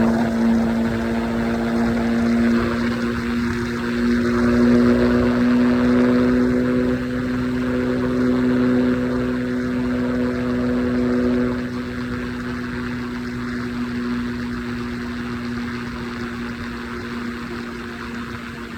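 Triumph Scrambler 400X single-cylinder engine running at a steady highway cruise, its note holding one pitch under wind and road noise. It gets a little quieter in the last third.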